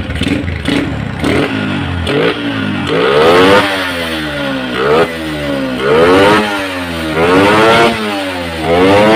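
Yamaha Jupiter MX single-cylinder four-stroke carbureted engine revved repeatedly: about six quick rises in pitch, each held briefly at the top and then let fall, the sweeps growing bigger after about three seconds. Each peak hits the rev limiter of a freshly fitted racing CDI, which cuts in cleanly without the stock limiter's stuttering 'cough'.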